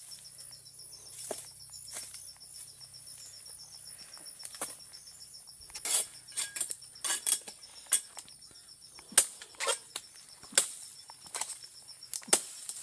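Steady high-pitched chorus of insects trilling, with many sharp, irregular clicks and knocks that come thicker and louder in the second half.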